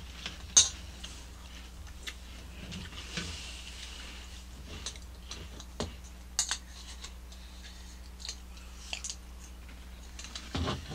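Metal spoons clinking and scraping in cereal bowls as crunchy cereal is eaten: scattered sharp clicks, the loudest about half a second in and a cluster near the end.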